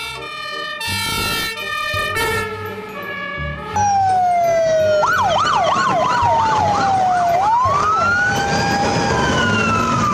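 Fire engine sirens. For the first few seconds a steady tone switches back and forth between pitches. Then, about four seconds in, louder electronic sirens cut in: a fast yelp over a slow wail that falls, rises and falls again.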